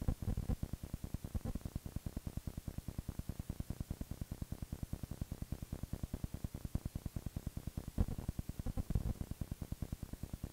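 Noise on a VHS videocassette's audio track: steady hiss over a low buzz that pulses in a rapid, even rhythm, with no programme sound.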